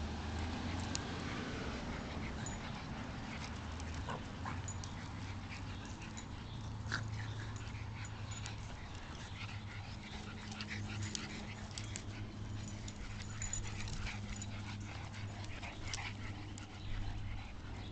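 A group of small dogs wrestling in play: scattered short, soft dog noises and scuffles, over a steady low hum.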